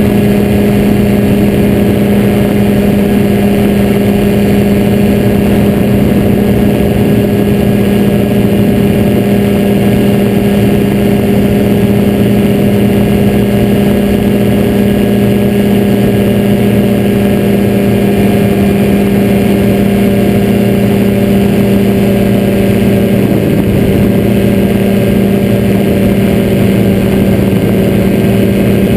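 Ultralight trike's engine and pusher propeller running at a steady climb/cruise setting, one unchanging drone heard from the open seat.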